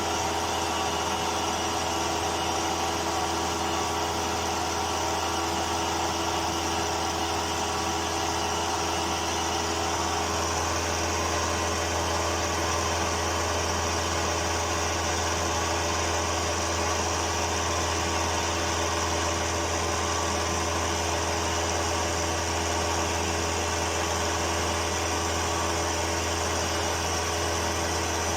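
Milling machine running a carbide end mill through a pass about 40 thou deep in thin shim stock: a steady mechanical hum with several fixed tones. Some of the middle tones fade about ten seconds in.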